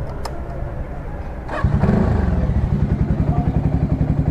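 Motorcycle engine, a Voge 300 Rally's single-cylinder, starting about a second and a half in with a short clatter, then idling with a fast, even throb.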